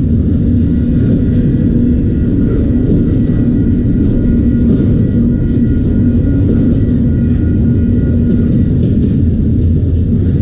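Autorack freight train rolling past, a loud, steady rumble of wheels on rail with a low hum running through it.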